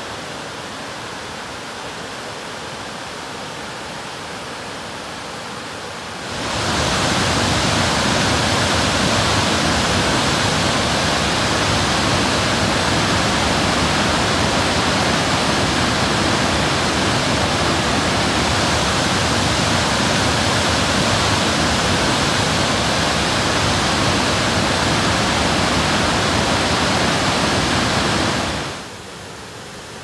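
Rushing water of Lucifer Falls: a steady, moderate rush from the mostly frozen falls, then, about six seconds in, a sudden jump to the much louder steady rush of the falls running in flood after heavy January rain. It drops back to a quieter rush near the end.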